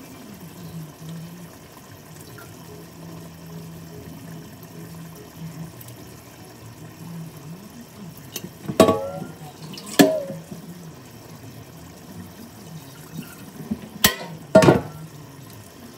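A jar of pasta sauce held upside down and shaken over a pot, with four sharp knocks as it is struck to get the last of the sauce out: two about a second apart past the middle, and two close together near the end. A low steady hum runs underneath.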